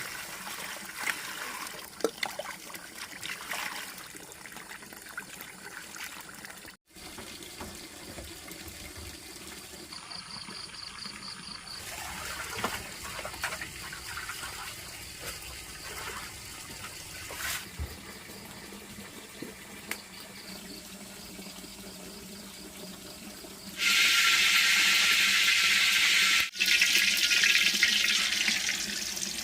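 Running water splashing and trickling, as from a tap or pouring. Near the end a much louder, steady rush of water comes in, broken briefly once.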